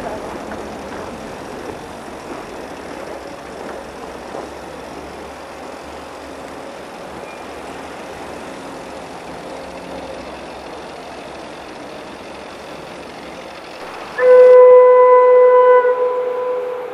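NSB Class 73b electric train's horn sounding one long steady blast about fourteen seconds in, the loudest sound, fading away near the end. Before it, steady outdoor noise with no distinct events.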